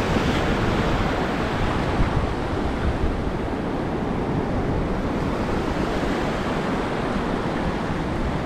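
Shore-break surf washing in over the sand and draining back out in a steady rush, with wind buffeting the microphone as a low rumble.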